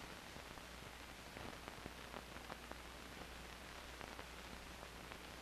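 Faint steady hiss with scattered clicks and pops: the surface noise of an old 16mm film soundtrack, with no other sound.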